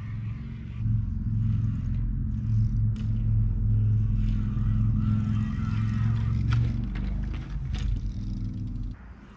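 Wind buffeting the microphone: a loud, low rumble that sets in about a second in and cuts off suddenly near the end. A few sharp knocks late on, around when the mountain bike goes down on the grass.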